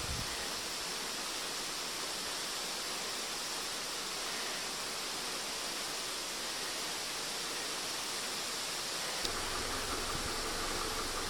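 Steady rushing water of a mountain creek. About nine seconds in, a low steady hum joins it.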